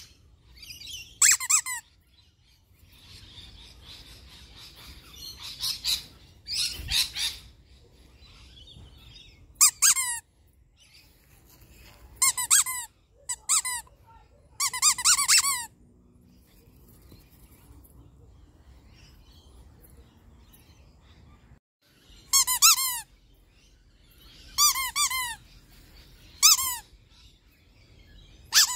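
Rubber squeaky dog-toy ball squeezed by hand in short bursts of two to four squeaks, each squeak falling in pitch, with pauses of a few seconds between bursts.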